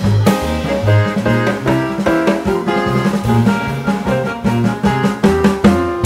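Background music with a drum-kit beat and a bass line.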